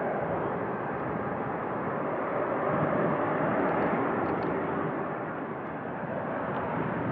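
Boeing 777 freighter taxiing, its two jet engines running at low taxi power: a steady rush of engine noise.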